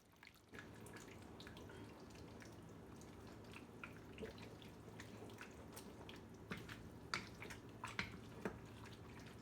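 Stir-fry sauce bubbling as it thickens in a wok: scattered soft pops and ticks over a steady low hum that starts about half a second in.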